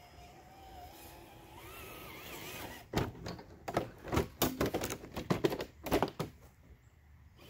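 RC crawler truck's electric motor and gears whining, rising and wavering in pitch as it strains up a root. About three seconds in, a clatter of knocks for about three seconds as the truck flips and tumbles down the slope.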